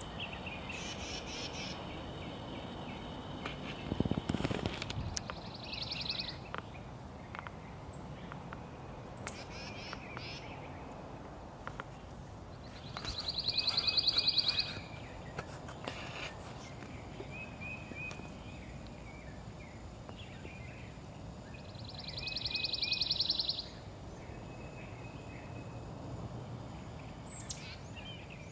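Songbirds singing outdoors: a rapid, even trill repeats three times, each about a second and a half long, with softer short chirps between, over a steady outdoor hiss. A brief low thump comes about four seconds in.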